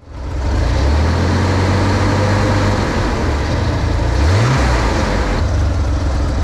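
A 1965 Chevrolet Corvair's air-cooled flat-six engine running steadily at idle, with a brief rise in revs about four seconds in. The new one-wire alternator is charging, showing about 14 volts at the battery.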